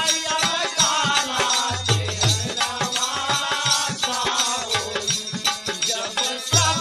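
Instrumental break in a recorded birha folk song: a melody line that bends in pitch, over repeated drum beats and rattling percussion.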